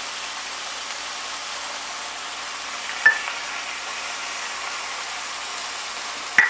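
Tomato and mushroom sauce sizzling steadily in a hot frying pan just after chicken stock has been added, with two sharp knocks, one about three seconds in and one near the end.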